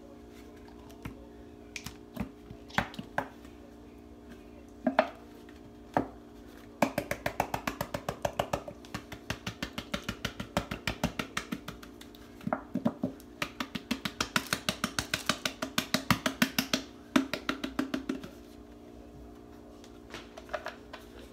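A hand repeatedly slapping the bottom of an upturned plastic ketchup bottle to knock out the last of the ketchup: a few single knocks, then two long runs of fast, even taps, about four a second. A steady low hum runs underneath.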